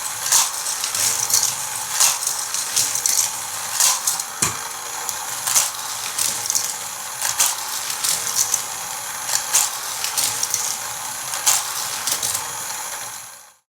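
Hot Wheels Tech Trax motorized power booster running steadily while die-cast toy cars clatter around the plastic track, with irregular sharp clicks and clacks about once a second; it cuts off suddenly near the end.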